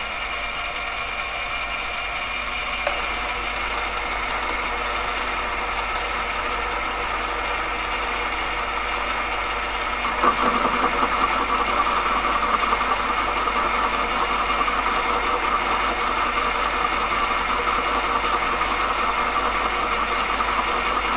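AMA 714B mini lathe running, its motor and spindle giving a steady whine while it turns a titanium bar. About halfway in the sound grows louder and rougher as the tool takes a shallow cut in the titanium.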